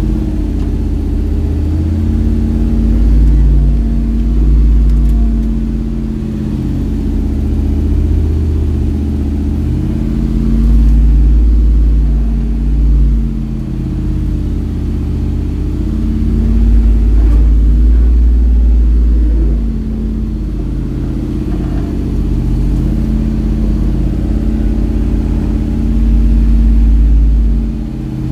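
Jeep Wrangler YJ's engine running under load on an off-road trail, swelling and easing repeatedly as the throttle comes on and off.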